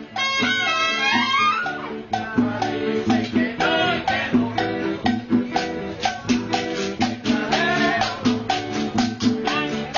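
Background salsa-style Cuban music, with percussion keeping a steady beat under melodic instruments.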